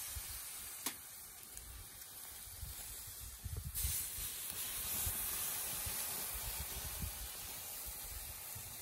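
Saffron-marinated chicken kebab sizzling on a skewer over hot charcoal, a steady hiss. About four seconds in the hiss suddenly grows louder as fresh lemon juice is squeezed over the meat and drips onto the coals.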